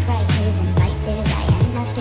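Background pop music with a steady beat and singing.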